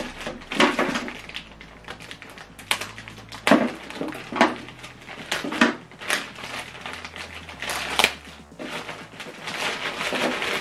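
Clear plastic bag crinkling and rustling as it is pulled open by hand, with the paper manual inside it rustling: a string of irregular sharp crackles, thickening into a denser rustle near the end.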